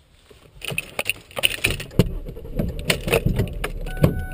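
Clicks, knocks and rattles of someone handling things and getting into a car's driver seat. Near the end a steady tone starts up and keeps sounding.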